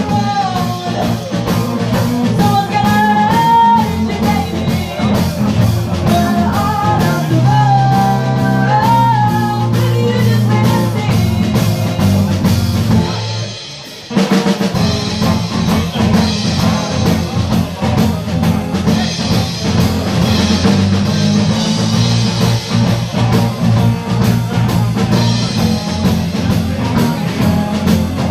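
Live blues band: a woman singing over electric guitars, bass guitar and drum kit. About thirteen seconds in the band drops out briefly, then comes back in and plays on without the vocal.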